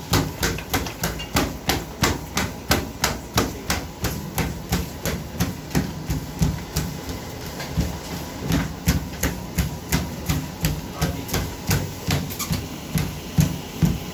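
Treadmill running with even, rhythmic thuds about three a second over a steady low hum, typical of feet striking the moving belt.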